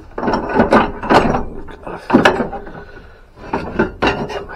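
Metal gas pump nozzles clunking and knocking together as a gloved hand rummages through them, a string of irregular knocks.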